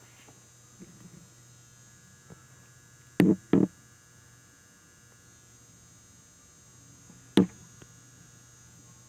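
Faint steady low hum with three sharp knocks: two in quick succession about three seconds in, and a single one about seven seconds in.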